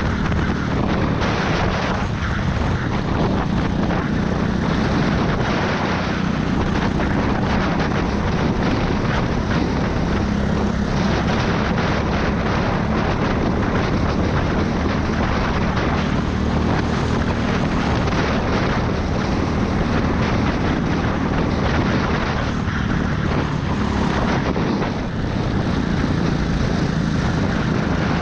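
Racing go-kart engine running hard under load, heard from on board the kart: a steady, loud engine drone mixed with a rush of noise, easing briefly about 25 seconds in.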